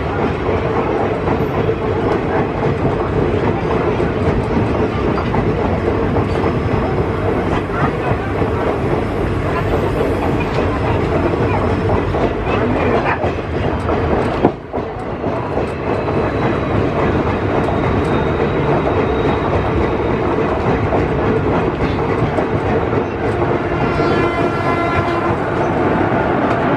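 Passenger train coaches running past on the track: a steady rumble with clickety-clack over the rail joints, broken by a sharp knock and a brief dip about halfway through. A short pitched tone sounds near the end.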